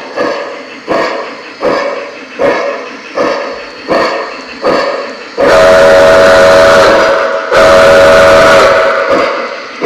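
Lionel Polar Express Berkshire No. 1225 model steam locomotive's onboard sound system: steady steam chuffs, about one every three-quarters of a second, then two long, loud steam whistle blasts with a hiss, from about halfway in.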